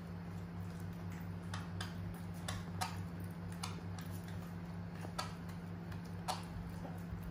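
Small irregular clicks and smacks of monkeys eating by hand, picking food from trays and chewing, over a steady low hum.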